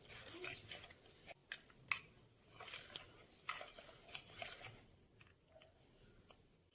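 Faint kitchen handling sounds: scattered light clicks and soft scraping or squishing of food being worked by hand or with a utensil.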